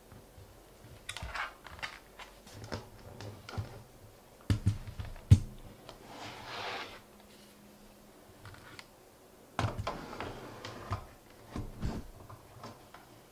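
Irregular clicks and knocks of things being handled and set down on a desk, including a white compact keyboard being moved across the desk mat, with a brief sliding rustle about six seconds in.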